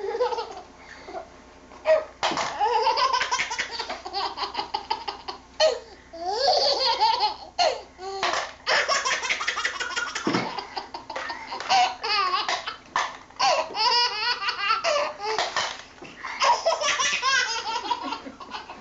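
Baby laughing uncontrollably in repeated fits of belly laughter, set off by the Trouble board game's pop-up dice button being pressed, which clacks sharply several times between the laughs.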